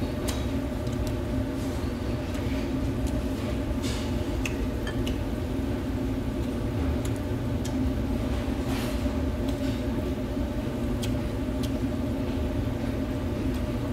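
Steady mechanical hum of a ventilation fan, with a few light clicks of metal chopsticks.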